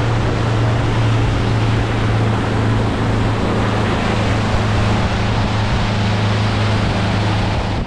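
Motorboat engine running at steady cruising speed, a constant low drone, with wind and the rush of water over it.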